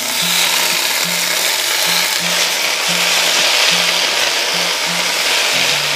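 Fresh spinach leaves sizzling in hot oil and butter in a stainless steel pot with garlic as a spatula stirs them, a steady hiss.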